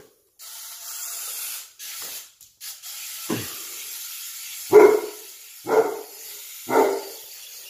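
A dog barks four times, single short barks spaced about a second apart in the second half, over a steady hiss.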